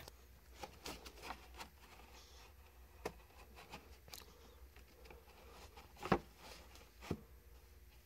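Faint clicks and taps from a 2002 Pontiac Montana's plastic HVAC air box as its blend-damper linkage rod is worked by hand, the loudest tap about six seconds in. A steady low hum runs underneath.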